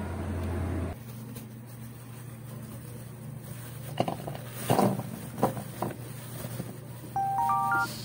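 Pieces of cut vegetables dropped by hand into a plastic bowl, giving a few soft knocks and taps about four to six seconds in. Near the end, a short electronic sound effect of stacked beeps stepping upward.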